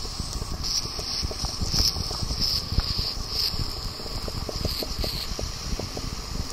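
Air whistling out of a Sony X3000 action camera's waterproof housing as seawater leaks in at depth, in irregular high-pitched hissing spurts: the sign that the housing is flooding. A dense crackle of small clicks runs underneath.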